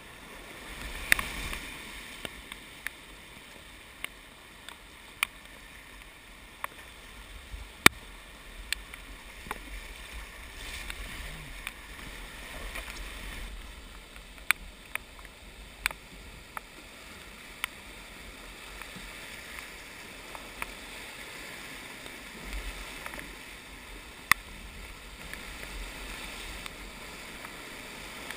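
Whitewater rapids rushing past a kayak, picked up by a helmet-mounted camera, with sharp irregular clicks and taps throughout, the loudest about eight seconds in.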